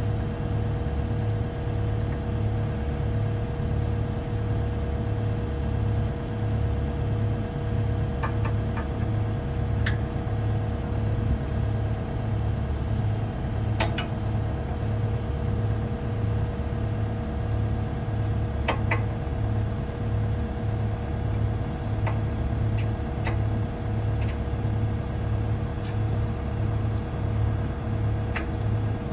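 Cat 299 compact track loader running steadily, a continuous machine drone with an even low pulsing, with a few light clicks and knocks scattered through it.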